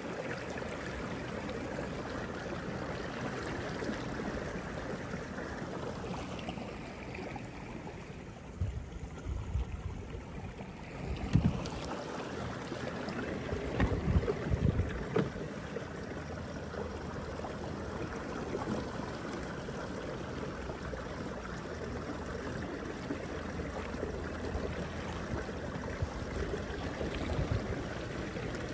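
Water rushing and splashing along a fishing kayak's hull as it moves steadily across a lake, with a few low thumps near the middle.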